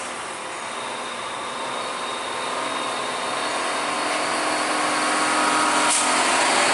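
Diesel engine of a Hino 500 FG8J cargo truck running under load as the truck approaches, growing steadily louder. A brief hiss comes near the end.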